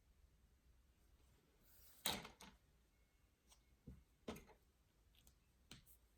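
A brief rustle, then a handful of light knocks and clicks, the loudest about two seconds in and another just after four seconds, over near-silent room tone.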